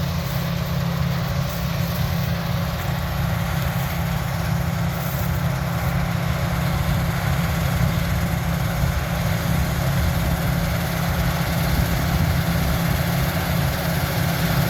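Heavy farm diesel engines running steadily: a low, even drone that grows slightly louder toward the end.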